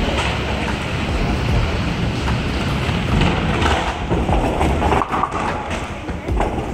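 Bowling alley din: the low rumble of bowling balls rolling down the lanes, with many short clattering knocks of balls and pins and people's voices underneath.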